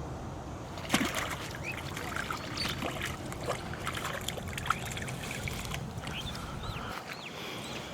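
Water splashing and sloshing in a shallow canal, a sharp splash about a second in and then many small ones, with a few short bird chirps in the second half.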